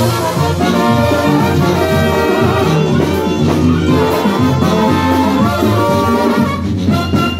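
A Mexican banda playing live: an instrumental passage of trumpets, trombones and clarinets over sousaphone and drums, loud and steady.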